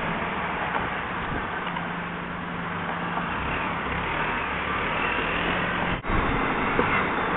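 Motorcycle engine running at a steady pace while riding, under a constant rush of wind on the head-worn microphone. The sound drops out briefly about six seconds in.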